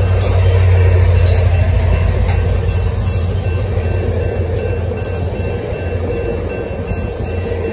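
A diesel passenger locomotive passing close by in the middle of a commuter train: its low engine drone is loudest about a second in and then eases off, while the bilevel passenger cars behind it roll past with a steady rumble and wheel noise on the rails.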